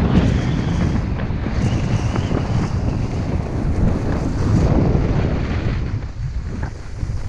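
Wind buffeting a GoPro's microphone as it moves downhill at skiing speed, a heavy steady rumble, with the hiss of skis sliding on snow swelling now and then. It eases a little about six seconds in.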